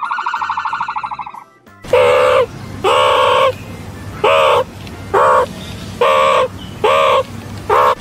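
A short warbling trill, then a run of eight loud, evenly repeated calls, each a single note that rises and falls, roughly one a second.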